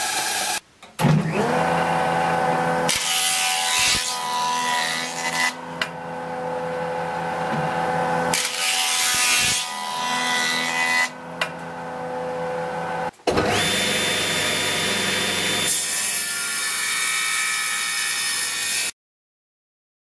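Jointer running, its motor giving a steady hum, as a rough board is pushed over the cutter head in several passes, each pass a louder rushing cut. The sound stops abruptly about a second before the end.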